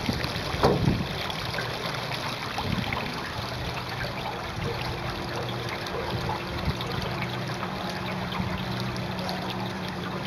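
Water trickling and gurgling along the hull of an aluminum Grumman sailing canoe under sail, with a single knock about a second in.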